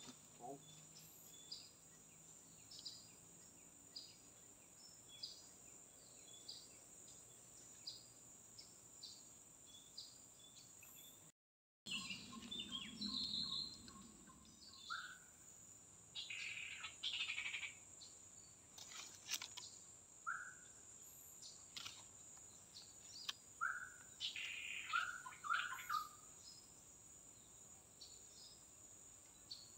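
Tropical forest ambience: birds chirping and giving short rising whistled notes over a steady high-pitched drone. The sound cuts out for a moment about a third of the way in.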